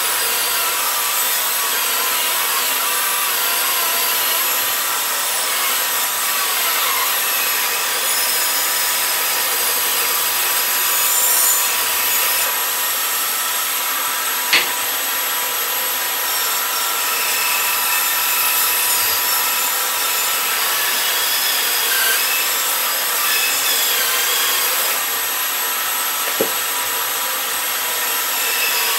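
Bandsaw running steadily while it cuts the outline of a guitar body out of a wooden blank, the wood rubbing on the table as it is turned to follow the line. A single sharp click comes about halfway through.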